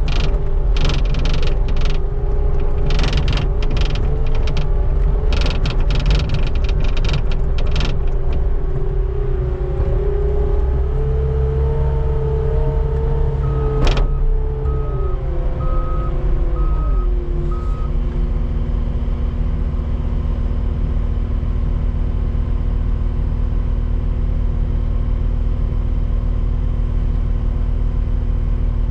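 Skid steer engine running under load while the bucket scrapes and clatters over the pavement for the first several seconds. The engine speeds up, and then about halfway through it drops to a lower steady speed, with a sharp click just before. The backup alarm beeps about five times, around one a second.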